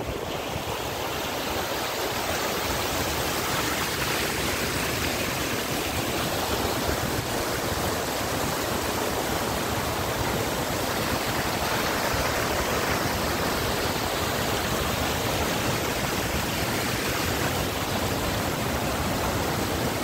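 Rain-swollen river in flood, rushing steadily over and past a low concrete causeway with churning white water.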